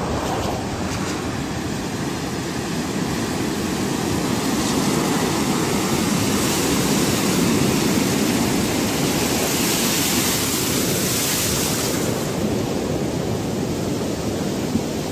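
Ala-Archa River in a sudden winter flood surge, rushing fast down its concrete channel loaded with slush ice and debris: a steady loud rush of water. It swells a little, with more hiss, through the middle of the stretch.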